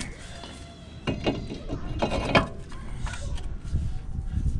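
Metal knocks and clunks of an EBC grooved and dimpled 300 mm vented brake disc being offered up and slid onto a car's front wheel hub. There are several sharp knocks from about a second in to about three seconds, the loudest a little past two seconds.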